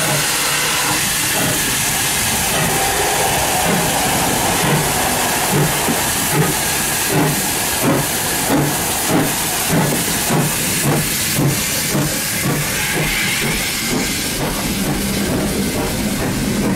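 GWR 0-6-0 pannier tank locomotive 6430 working past under steam, hissing, with exhaust chuffs that come slightly quicker, about one and a half a second. Near the end the chuffs give way to the steady rumble of the coaches rolling by.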